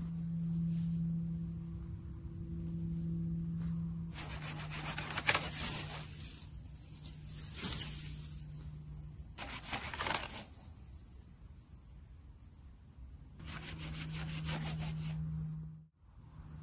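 Dry branches and birch wood rustling and crackling as they are handled and broken on a forest floor, in several bursts, over a low steady hum.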